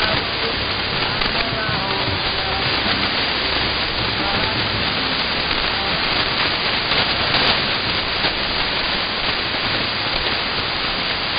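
Shortwave AM reception of the pirate station WBOG on 6874.1 kHz, mostly steady static with faint program audio barely showing through.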